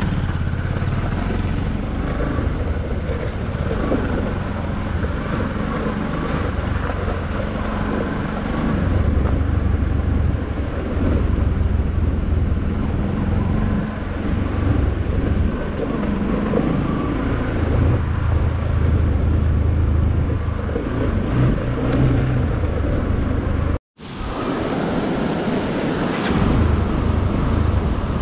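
Motor vehicle engine running while driving, with road noise; the engine note shifts up and down from stretch to stretch. The sound cuts out completely for a moment about 24 seconds in, then resumes.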